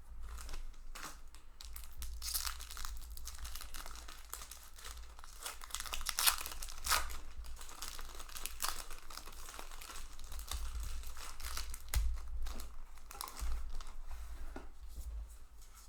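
A Magic: The Gathering booster pack's foil wrapper being torn open and crinkled in the hands, with a run of crackling rustles and a few sharper crinkles.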